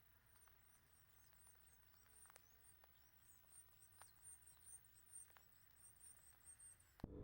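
Near silence with a faint, quick series of very high-pitched chirps from a small bird, with a few faint clicks.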